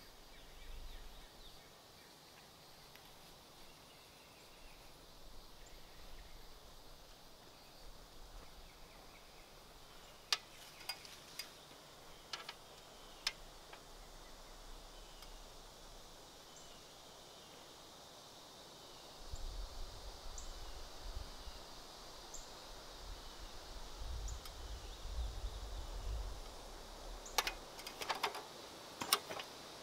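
Quiet outdoor ambience with a steady high hum, a few sharp knocks or clicks about ten seconds in and a cluster of them near the end, and a low rumble through the second half.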